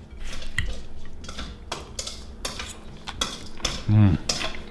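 Forks and spoons clinking and scraping against plates while a salad is served and eaten, a rapid string of small clicks. About four seconds in, a brief hum or murmur from a diner.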